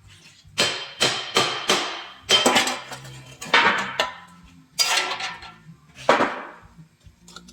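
Hammer blows on metal, a dozen or so sharp ringing strikes in irregular groups of one to three, over faint background music.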